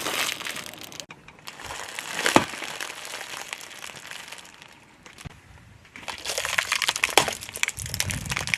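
Crunchy objects being crushed under a car tyre: dense crackling and snapping, with one sharp crack about two seconds in. The crunching cuts off abruptly about a second in and again near six seconds, and new crushing starts each time.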